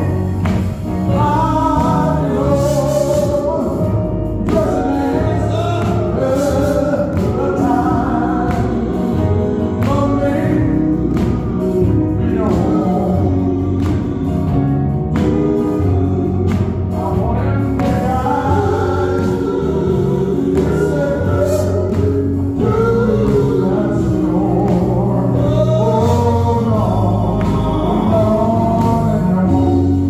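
Live gospel quartet singing through a PA: a male lead voice backed by vocal harmonies, with electric guitar and a steady low bass line underneath.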